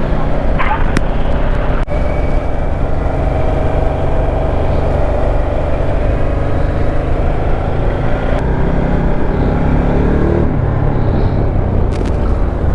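Motorcycle engine running at highway speed under a steady rush of wind and road noise. The engine note rises for a couple of seconds about eight and a half seconds in, then settles.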